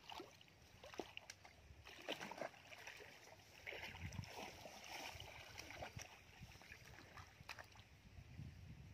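Faint splashing and sloshing of shallow, muddy ditch water as legs wade through it and a rope is dragged, with scattered small clicks and knocks.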